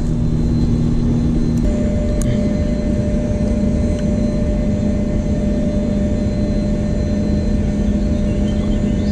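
A steady machine drone: a low hum, joined about two seconds in by a higher steady tone, over a continuous rushing noise.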